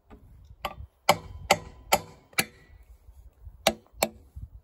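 Hammer blows on the cast-iron block of a DT-20 tractor engine, at the glued-on cover plate over a frost crack: five sharp, briefly ringing metallic strikes about half a second apart, then two more near the end.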